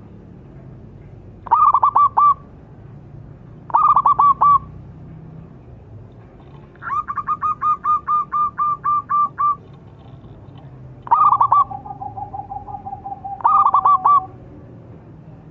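Zebra dove (perkutut) singing in five phrases of quick, clipped cooing notes. The middle phrase is a longer run of about a dozen notes, about four a second. A lower steady note runs under the fourth phrase.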